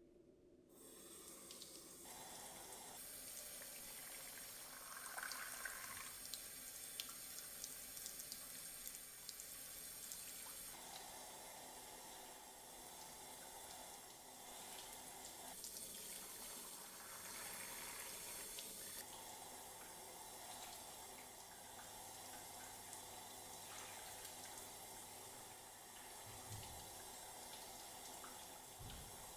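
Dyson V10 cordless stick vacuum running with a steady rushing hiss, its sound shifting abruptly several times as the nozzle's airflow changes.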